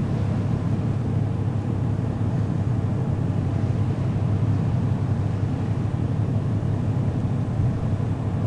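Steady low drone of the ferry Aogashima Maru's engines, heard on deck while under way, with a rush of wind and sea over it.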